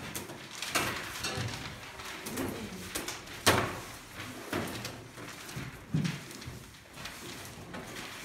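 Paper ballots being sorted by hand on a table: paper rustling and flicking as sheets are picked up and dropped onto piles, with a sharp slap about three and a half seconds in.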